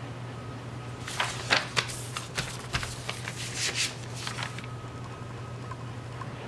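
Sheets of paper rustling and crackling in a quick run of scrapes and crinkles for about three and a half seconds, starting about a second in, over a steady low electrical hum.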